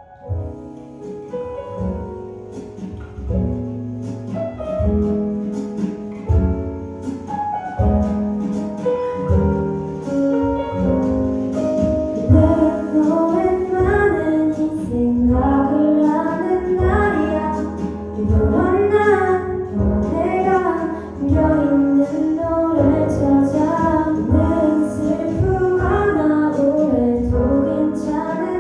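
A young girl singing a slow Korean pop ballad over a backing track with a beat. The accompaniment plays alone for about the first twelve seconds, then her voice comes in.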